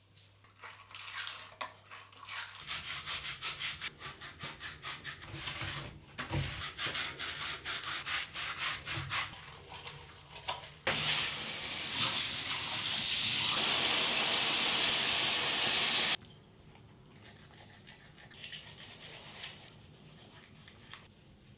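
Silicone bath mitt scrubbing a dog's wet, short coat in quick, repeated rubbing strokes. Then a loud, steady rushing noise that lasts about five seconds and cuts off suddenly.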